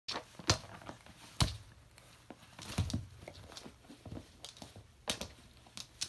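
A hyacinth macaw thrashing a slipper against a wooden floor: a string of irregular thuds and knocks, the sharpest about half a second and a second and a half in.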